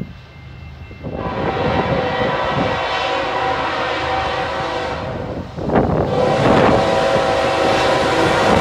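Air horn of the lead diesel locomotive, CN 3900, sounding a chord of several notes. A long blast starts about a second in and breaks off briefly past the five-second mark, then a second long blast follows, over the low rumble of the approaching locomotives.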